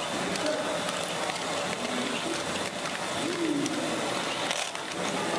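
Steady babble of a crowded exhibition hall, with distant voices and scattered light clicks and rattles from plastic balls moving through motorised LEGO Great Ball Contraption modules.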